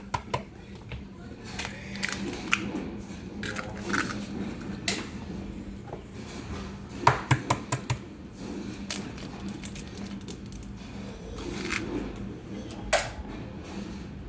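Eggs being tapped and cracked against a mixing bowl: short runs of sharp clicks and taps, one cluster near the start, another about seven seconds in and a single sharp knock near the end.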